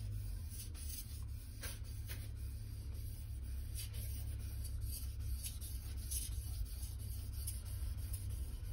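VG1 steel santoku blade being pushed and pulled across a Naniwa Chosera waterstone: soft, repeated scrapes of steel on the wet stone, roughly one a second, over a steady low hum.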